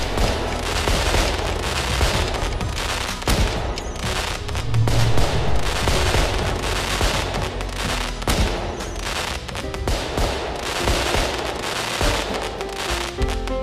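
Fireworks going off in a dense, continuous volley of bangs and crackles. Music comes in near the end.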